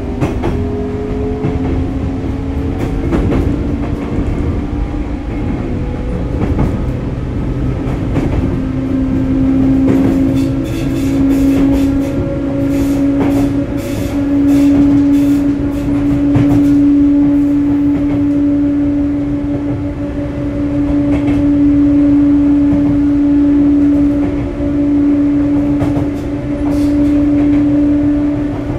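Sotetsu 8000 series electric train with Hitachi GTO-VVVF control running along the line. A steady whine from the traction drive rises slowly in pitch as the train gains speed, over rumbling wheel and track noise, with a run of light clicks about halfway through.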